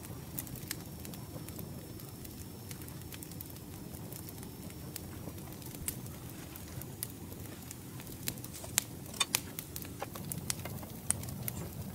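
Wood campfire crackling, with irregular sharp pops over a low rumble and a few louder cracks about nine seconds in.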